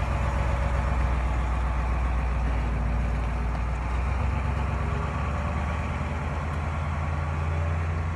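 A large vehicle's engine idling steadily, with a low, even note.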